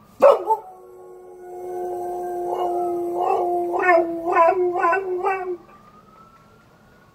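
Border collie howling after a couple of sharp yips: one long steady howl that breaks into wavering pulses about twice a second and stops abruptly. A faint, distant siren wails up and down behind it, the sound the dog is howling along with.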